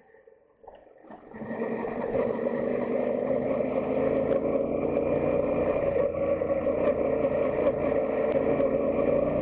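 Yamaha Ténéré 700's 689cc CP2 parallel-twin engine running as the motorcycle rides along a gravel track. It is faint at first and comes up loud about a second in, then runs steadily. Small ticks of gravel sound under the tyres.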